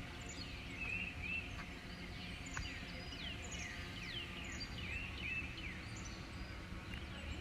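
Wild birds singing: short falling whistled notes repeated over and over, mixed with a few rising-and-falling notes, over a steady low rumble.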